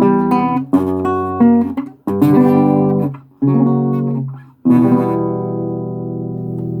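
Acoustic guitar strumming chords in short phrases with brief breaks, then a final chord strummed about two-thirds of the way in and left ringing.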